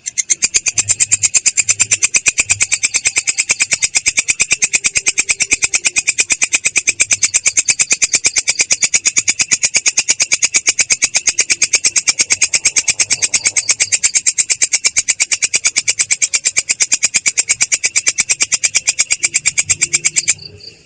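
A singing insect's call: a loud, rapid, perfectly even train of high, rasping clicks that cuts in and cuts off abruptly.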